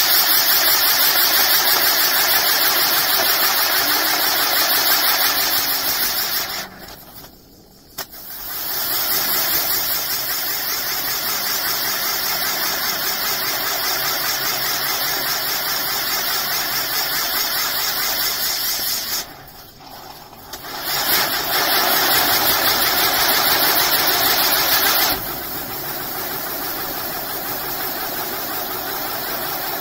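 Firework pinwheel's driver fountains spraying sparks with a loud, steady hiss. Twice the hiss drops off almost to nothing for a second or two as one stage burns out, then surges back as the next lights. It eases slightly near the end.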